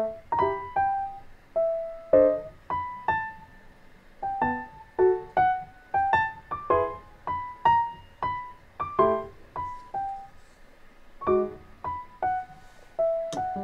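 Background music: a piano melody of single struck notes, each dying away quickly, with a few chords.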